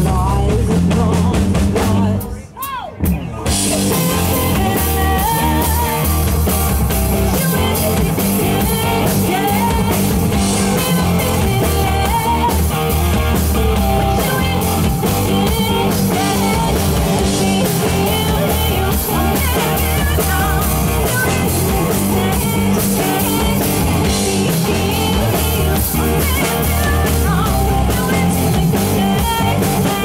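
Live rock band playing, guitar and drum kit, with a woman singing into a microphone. The music breaks off briefly about two seconds in, then comes back in full.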